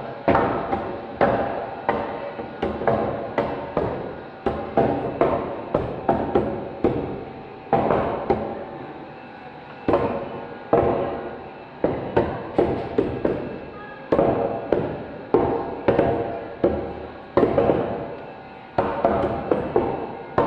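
Cleavers chopping chicken feet on a wooden board: a run of sharp chops, about two a second with a few short pauses, each ringing on briefly.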